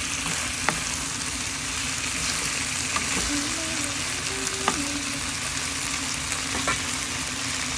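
Chicken, potatoes and napa cabbage sizzling steadily as they are stir-fried in a nonstick frying pan, with a few sharp clicks scattered through.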